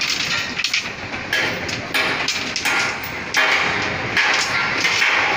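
Building-site noise: irregular hammer blows and metal clanks on steel, several a second, each ringing briefly.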